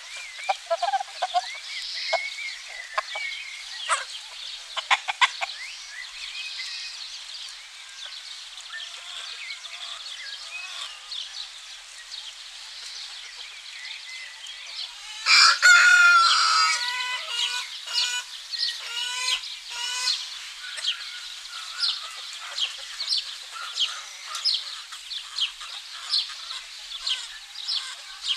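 Chickens: a rooster crows once about halfway through, the loudest sound, over hens clucking now and then. Small birds chirp throughout.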